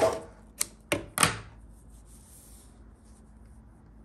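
Janome 8002D overlocker stopping, its running noise dying away at once, followed by three sharp clicks in the next second or so as the sewn piece is handled.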